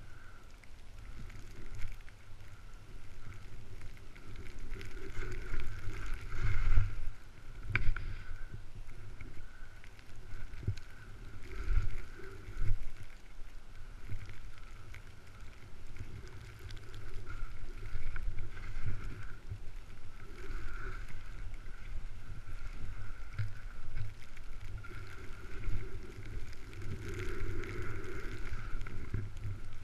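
Wind rushing over the microphone during a downhill ski run, with the hiss and scrape of skis in snow and frequent low thumps as the skier bumps over the terrain, swelling and easing with speed.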